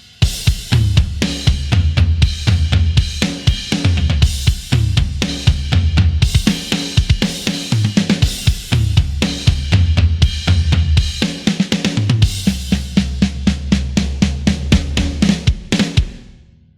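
Hard-rock drum groove played on sampled acoustic drums from EZdrummer 3's Hard Rock EZX library: kick, snare, hi-hat and cymbals in a steady driving pattern over a low bass line. It stops about a second before the end and rings out.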